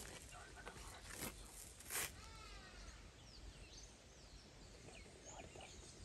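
Quiet bush ambience with faint bird chirps. Two short snaps or clicks come about a second and two seconds in, the second the loudest.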